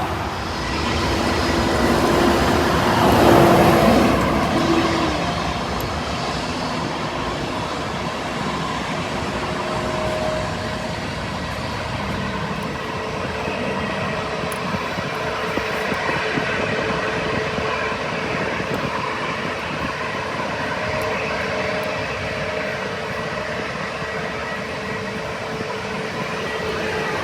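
Frontier Airlines Airbus A320-family jet airliner's engines running: a steady rush with a held hum, loudest about three to four seconds in.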